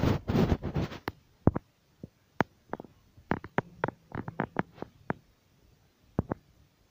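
Handling noise on a handheld camera: a muffled rubbing rumble in the first second, then a series of irregular sharp clicks and taps.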